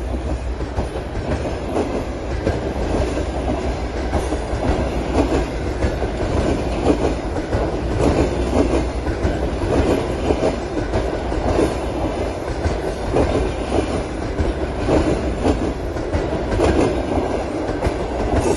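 Passenger coaches of a diesel-hauled train rolling past at speed. Their wheels clatter over the rails in a repeated clickety-clack over a steady rumble.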